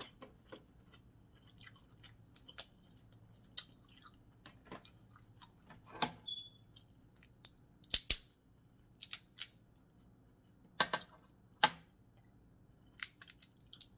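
Close-up eating sounds from a seafood boil meal: quiet chewing broken by scattered sharp clicks and cracks, the loudest a quick double crack about eight seconds in.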